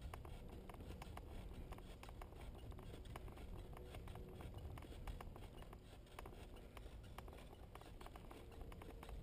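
Bicycle rolling along a paved road: a low steady rumble from the tyres and air, with frequent small rattling clicks from the bike over the road surface.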